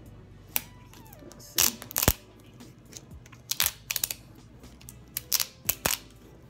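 Paper backing being peeled off an adhesive-backed strip of acrylic rhinestones, in short bursts of crackling and tearing with sharp ticks; the loudest bursts come about a second and a half in and again around four seconds.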